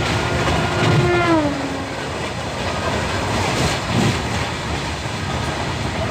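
Inside a moving passenger train coach: the steady rumble and rattle of the coach running on the track. About a second in, a brief tone slides down in pitch, and a short knock comes near the middle.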